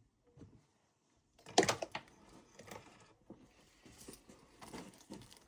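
Objects being handled: a sharp knock about a second and a half in, then scattered clicks, rattles and rustling.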